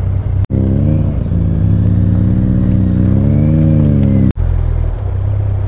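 Motorcycle engine running at low revs, its pitch rising and falling with the throttle, with two abrupt cuts in the sound.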